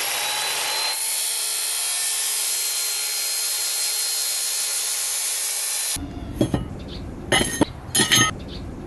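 Compound miter saw running and cutting through aluminum angle, a steady high grinding whine that stops abruptly about six seconds in. Then a few sharp clinks and knocks as the cut aluminum piece is handled.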